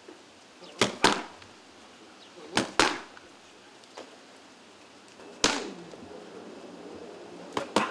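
Boxing gloves striking focus mitts: sharp slaps, mostly in quick pairs like one-two combinations, with pauses of a second or two between them.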